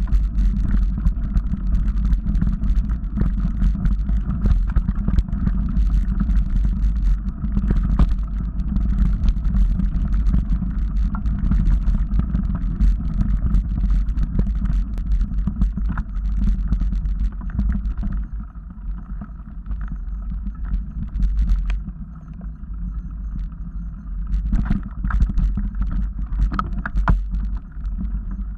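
Mountain bike riding a dirt forest trail, heard through a helmet-mounted action camera: a steady low rumble with frequent short knocks and rattles from bumps in the trail. It eases a little for a few seconds past the middle.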